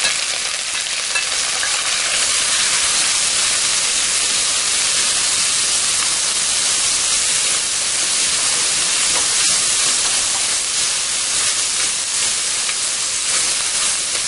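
Chopped onions and green chillies frying in hot oil in a clay pot: a steady sizzle, with a steel ladle stirring through them.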